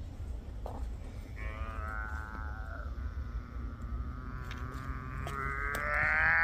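A long, drawn-out moaning call begins about a second and a half in. It holds for several seconds, then swells louder and rises a little in pitch toward the end.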